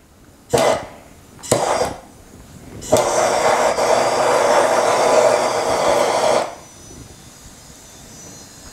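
Two brief hisses, then a steady rushing hiss of flame for about three and a half seconds that cuts off suddenly: a lighter setting Hennessy cognac alight in a hot pot to flambé it and burn off the alcohol.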